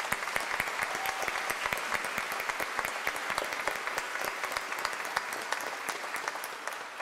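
Congregation applauding, a steady round of many hands clapping that tapers off near the end.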